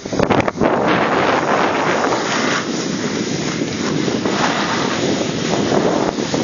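Wind rushing over the microphone of a skier going downhill, mixed with the hiss of skis sliding on packed snow. A few quick knocks just after the start.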